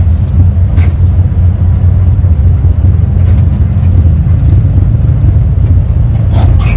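Steady low rumble of a moving road vehicle heard from inside its cabin: engine and road noise while travelling along a highway.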